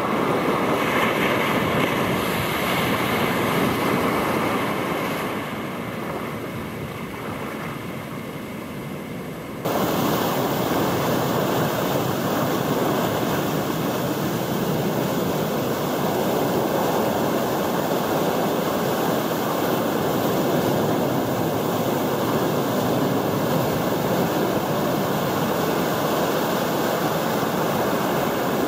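Shorebreak waves breaking and washing foam up a sandy beach: a steady rush of surf. It swells loud, eases off over the next few seconds, then about ten seconds in jumps abruptly to a louder, brighter, continuous crash of breaking waves.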